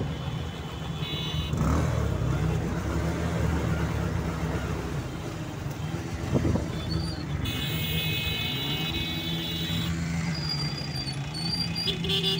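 Car engine running steadily, with a high steady tone sounding for a couple of seconds a little past the middle.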